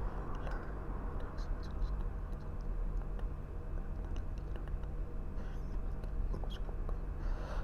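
Quiet room tone: a steady low hum with a few faint ticks and soft rustles.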